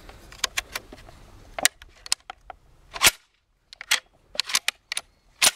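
M1 Garand being loaded and fired with blanks through a blank adapter. Small metal clicks of the clip going into the receiver, then a sharp report about three seconds in, a few clacks of the action, and a second strong report near the end.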